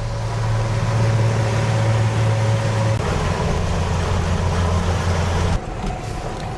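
Boat engine running steadily with a deep hum; its pitch drops slightly about three seconds in, and it gets quieter near the end.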